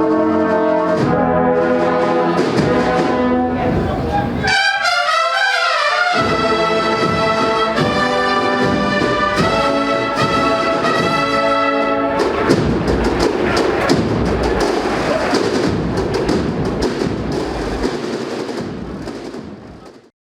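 Agrupación musical, a processional band of cornets, trumpets and trombones, playing a march, with a quick rising run about five seconds in. From about halfway a noisy crowd wash overlays the band, and the sound fades out just before the end.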